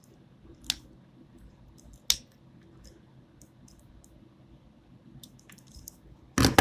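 Sharp small clicks from handling Cat 6 twisted-pair wires and a plastic RJ45 connector: two distinct clicks about a second and a half apart, then a louder short clatter near the end.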